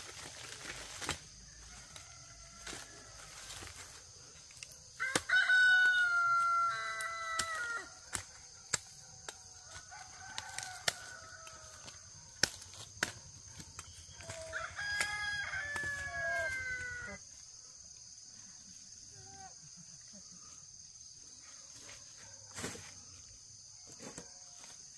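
A rooster crowing twice, each crow a long call of two to three seconds, the second about ten seconds after the first, with scattered light clicks and knocks around them.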